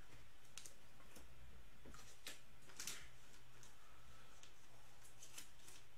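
Faint, scattered clicks and light rustles of trading cards and clear plastic card holders being handled, over a low steady hum.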